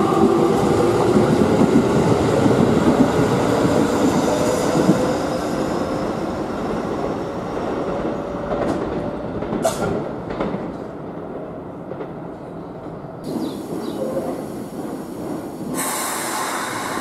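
Keikyu electric trains at a station platform: a train runs out with a slowly rising motor whine over wheel and rail noise, which then fades. A second train creeps in with wheel squeal and a sharp metallic clank about ten seconds in, and near the end comes a burst of hissing air.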